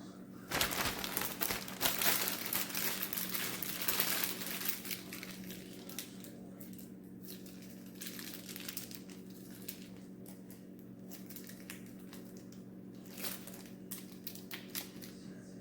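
Crinkling and rustling of something being handled, heaviest over the first few seconds and coming back briefly near the end, over a steady low hum.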